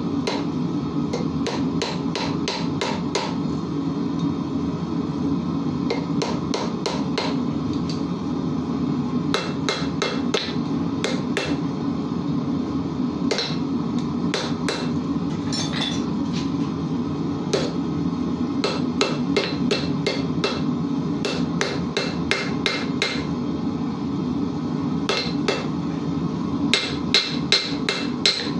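Hand hammer striking red-hot iron on a steel anvil, in quick runs of several ringing blows, about three or four a second, with short pauses between runs, over a steady low hum.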